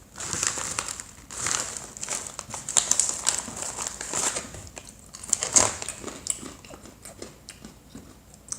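Plastic snack bag crinkling as it is handled, in irregular bursts of crackling.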